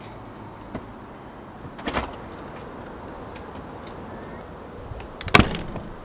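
Two short bursts of clattering knocks, the first about two seconds in and a louder one near the end, over a steady low background hum.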